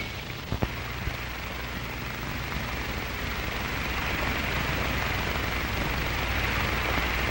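Steady hiss over a low hum, the background noise of an old film soundtrack, growing a little louder about three seconds in, with one faint click near the start.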